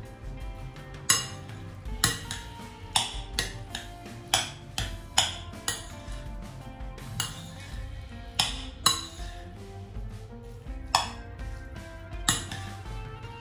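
A utensil clinking and scraping against a large bowl while rice salad is mixed: about a dozen sharp clinks at irregular intervals. Background music plays underneath.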